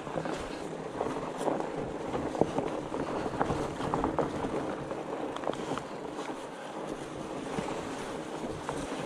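Steady wind rush on the microphone while riding a fat bike, with scattered small clicks and knocks.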